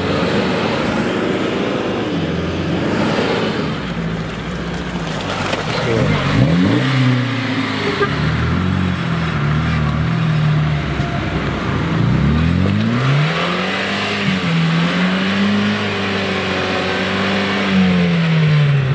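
Another SUV's engine running through mud, then a Lada Niva's engine revving hard in repeated rising and falling surges as its wheels spin in deep mud ruts. The Niva is hung up on its ground clearance and not getting through.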